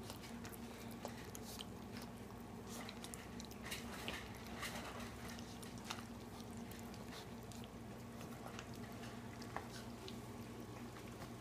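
Otterhound puppy eating a wet mash of ground dog food, goat yogurt and water from a dish: faint, irregular smacking and chewing clicks throughout, over a steady low hum.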